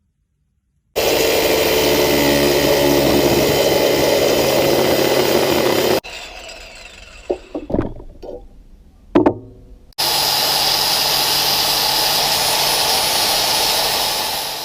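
A power tool cutting through metal: two loud, steady stretches of cutting with a quieter gap between them in which there are a few knocks.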